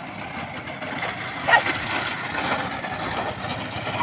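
Motorcycle engines running as the bikes ride along close behind a bullock cart, with a short, louder pitched burst about a second and a half in.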